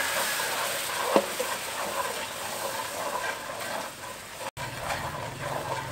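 A brown sauce bubbling and sizzling in a nonstick frying pan while a wooden spoon stirs it, with a single sharp knock about a second in. The sound drops out for an instant a little past four seconds in.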